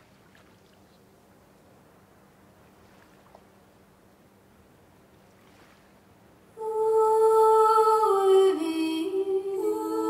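Faint hiss, then about two-thirds of the way in, sung voices come in with long held humming notes that step down in pitch, a second voice holding a lower note alongside near the end. It is a recorded vocal imitation of the red-throated diver from a composition based on bird mimicry in Scottish Gaelic song.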